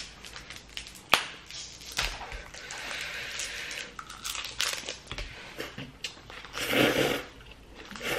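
Close-up eating sounds: ramen noodles being slurped in from chopsticks, with wet chewing and mouth clicks. A sharp click about a second in, and a louder slurp near the end.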